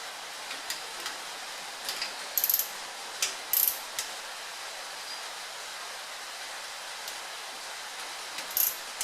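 Hand ratchet wrench clicking in short bursts, three quick ratcheting runs with a few single metal clicks between them, as bolts are worked on the rear end.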